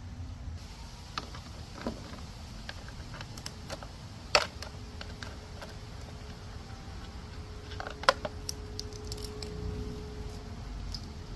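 Scattered clicks and knocks of hard parts being handled, with two louder knocks about four and eight seconds in, over a low steady hum.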